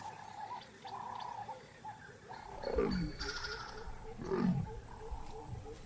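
Leopard calling: two low, falling calls, about a second and a half apart.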